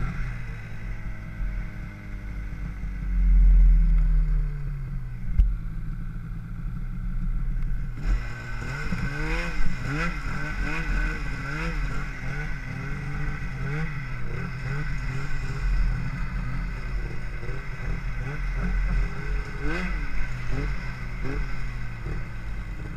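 Arctic Cat 8000 XF snowmobile's two-stroke twin engine winding down, its pitch falling over the first few seconds. It runs low and quieter for a few seconds, then revs up again about eight seconds in, the revs rising and falling again and again as the sled rides on. A burst of low wind rumble on the microphone comes around three seconds in.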